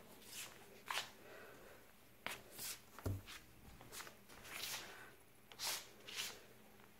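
Faint, intermittent rustling and crinkling as kittens bat and paw at a white wand toy dangled at a cardboard box, with a soft thump about three seconds in.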